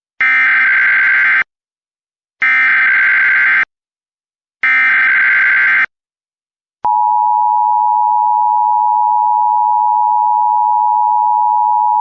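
Emergency Alert System signal: three identical bursts of the SAME digital header, the shrill data screech that encodes the alert, here a High Wind Warning. After a short gap the steady EAS attention tone starts and holds.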